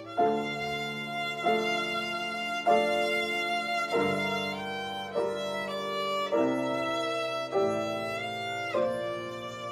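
Violin playing a slow melody in sustained bowed notes, moving to a new note about once a second, with piano accompaniment underneath.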